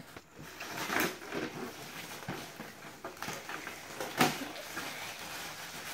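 Plastic wrapping crinkling and a cardboard trading-card box being handled as it is unwrapped and opened, with a sharp click about a second in and a louder knock about four seconds in.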